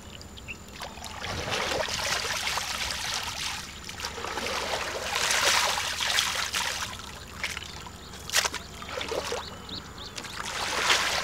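Muddy water splashing and trickling as a perforated plastic basket is scooped through a shallow mud pool and water drains out through its holes, coming in several swells, with one sharp knock a little past the middle.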